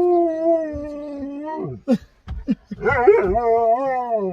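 Husky howling. One long, steady howl falls away about a second and a half in, then come a few short whines, then a second, wavering howl that rises and slides down in pitch.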